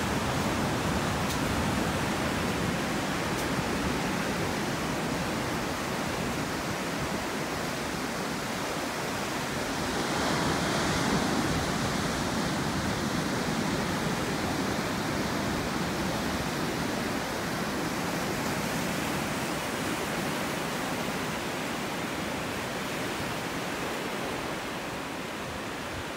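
Ocean surf breaking and washing in below the pier, a steady rushing wash that swells for a couple of seconds about ten seconds in.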